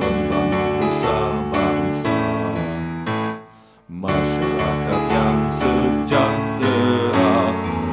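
Instrumental introduction of an organisation's march anthem, led by piano or electric keyboard, dropping out briefly about three and a half seconds in before resuming.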